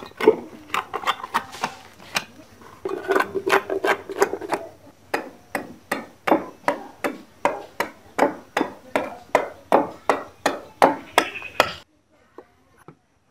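Curved machete chopping into a coconut palm frond stalk: a steady run of sharp woody knocks, about three a second, that stops suddenly near the end.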